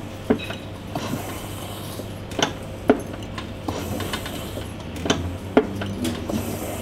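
Cask ale hand pump (beer engine) being pulled to pour a pint through a swan-neck spout: a handful of sharp clicks and knocks from the pump strokes as the glass fills, over a steady low hum.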